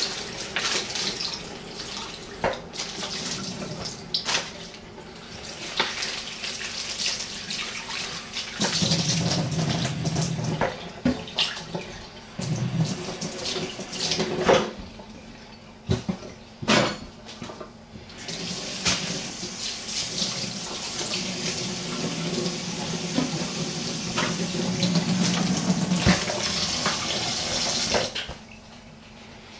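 Kitchen tap running into a sink as raw liver is rinsed under cool water to wash off the blood. The water splashes unevenly, with a few knocks, and the tap shuts off near the end.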